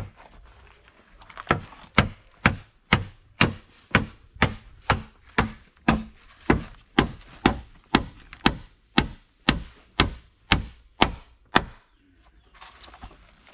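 Hammer blows, a steady run of about twenty strokes at roughly two a second. They start about a second and a half in and stop shortly before the end.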